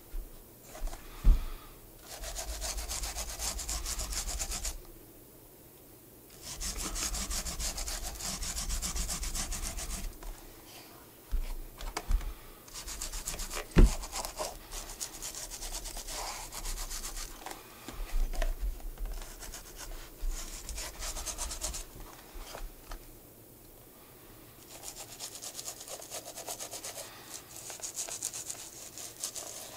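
Brisk rubbing strokes on a shoe, in five bouts of a few seconds each with short pauses between, and a couple of sharp knocks, one about a second in and one near the middle.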